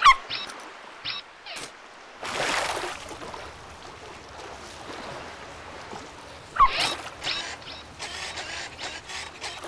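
Cartoon sound effects: a splash as the animated puppy dives into the sea, then a steady muffled underwater wash. About two-thirds of the way in comes a short dog yip, followed by small bubbly blips.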